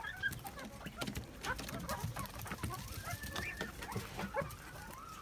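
Red golden pheasant chicks giving short, soft peeps and chirps, with faint scratchy clicks of pecking at grain on a concrete floor.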